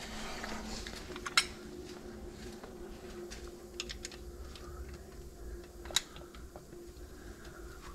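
Scattered small metallic clicks and taps of hand tools on bolts while a replacement water pump inlet pipe is fastened on, with two sharper knocks, one a little over a second in and one about six seconds in. A faint steady hum sits underneath.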